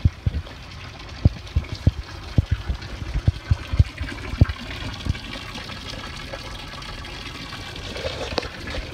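Footsteps thud in a quick run for the first five seconds or so, over a steady hiss of water trickling from a bronze wall fountain.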